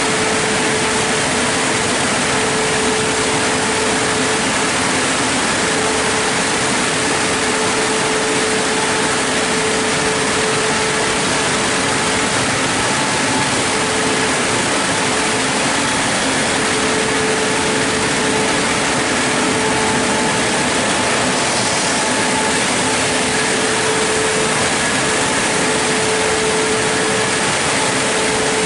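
Christ Genius Vitesse rollover car wash running its drying stage: the blowers give a steady rush of air with a constant hum from the gantry's fan motors.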